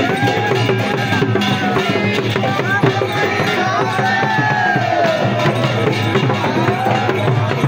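Loud live festival folk music: drums and clacking percussion beat densely and steadily under a melody line that slides up and down in pitch.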